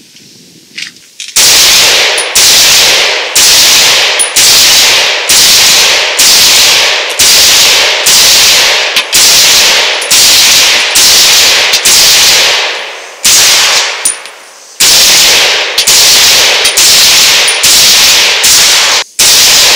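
Ruger Mini-14 Tactical semi-automatic rifle in 300 AAC Blackout firing a string of about twenty rounds offhand, roughly one shot a second, each shot trailing a short ringing echo. The firing starts about a second in, pauses for about two seconds past the middle, then resumes.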